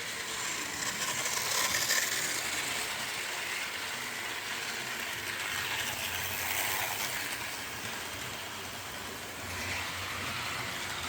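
Model diesel locomotives running around a model railway layout: a steady whirr of small electric motors and gears with wheels rattling on the track. It grows louder and softer in swells as the trains come past.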